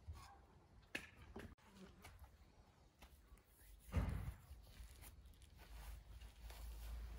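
Metal spoon scraping and tapping in a frying pan and spooning minced-meat filling into a hollowed quince: a few light clicks and scrapes, with a louder knock about four seconds in.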